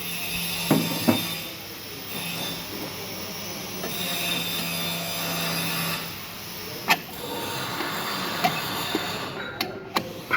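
Metal clinks and knocks of tools and pump parts being handled during work on a centrifugal pump, with a few sharp clicks and a steady low hum that stops about six seconds in.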